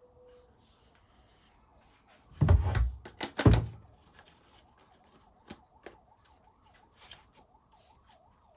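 Hard plastic parts of a cordless pressure washer's lance and rotating nozzle head being handled: two loud knocks about a second apart, then several light clicks. Under the clicks a faint warbling tone rises and falls about three times a second.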